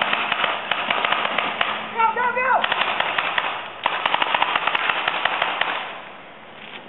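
Paintball markers firing rapid strings of sharp pops, with a brief falling shout about two seconds in. The firing breaks off for a moment just before four seconds, resumes, then fades near the end.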